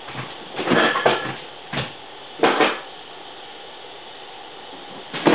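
Kitchen clatter: a few knocks and clinks of kitchenware and cupboard doors being handled in the first three seconds, then only a steady low hiss.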